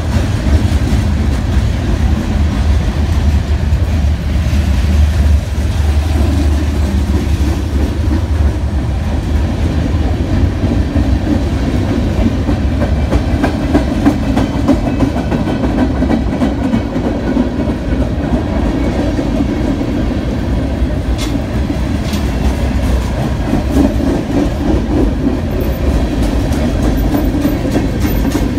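Freight cars rolling past at speed: a steady rumble of steel wheels on rail, with many quick clicks from the wheels throughout.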